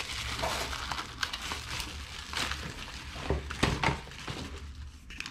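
Packaging rustling and crinkling as a bag is rummaged through, an uneven crackle with a few sharper knocks about halfway through.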